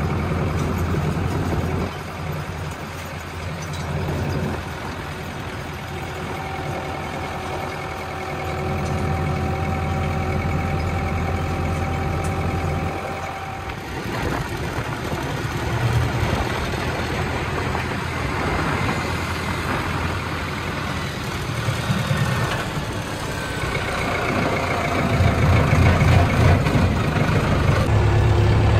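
Tractor's diesel engine running while driving, its note rising and falling a few times.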